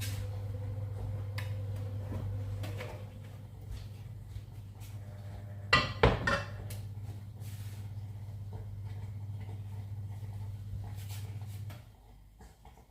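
Kitchenware clattering and knocking a few times, loudest in a quick cluster of knocks about six seconds in, over a steady low hum that stops near the end.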